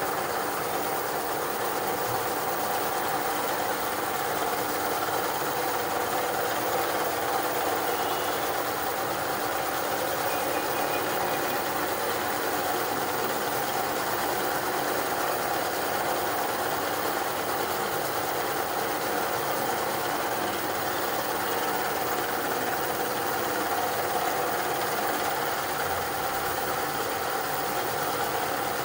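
Motorized meat grinder running steadily under load, an even motor hum with no change in pitch or level, as it grinds chocolate and pushes it out through the cutting plate.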